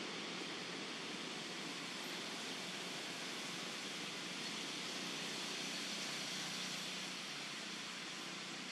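Steady outdoor background hiss, an even wash of noise with no distinct calls or knocks.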